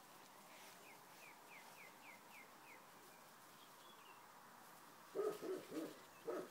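A Standard Schnauzer in a sneezing fit gives a quick run of four short nasal sneezing sounds near the end. Earlier a bird chirps faintly, about eight quick falling chirps in a row.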